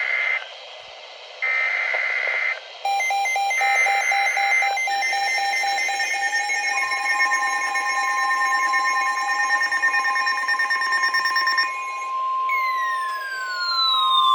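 NOAA Weather Radio emergency alert: three one-second bursts of SAME digital header data, a second apart, then several weather radio receivers alarming with overlapping beeping tones and the steady 1050 Hz warning alarm tone. Near the end a siren-like tone falls in pitch.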